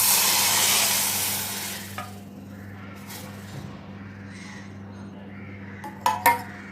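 Hot samahan kashayam (herbal decoction) hissing in a metal vessel, loud at first and fading after about two seconds, then two sharp clinks of metal utensils near the end.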